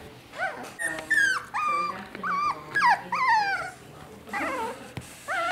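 Young Maltese-mix puppies whining and squealing: a quick string of short, high-pitched cries that drop in pitch, with a brief lull near the end before a few more.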